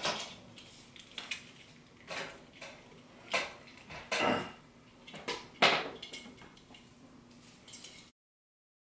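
Plastic Christmas ornament balls clacking against each other as they are handled and hung on an artificial tree, with a faint rustle between; a handful of sharp clacks, the loudest nearly six seconds in. The sound cuts off suddenly near the end.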